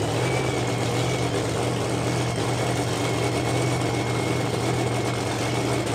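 Engine idling steadily, with a thin, steady high-pitched whine over its low hum.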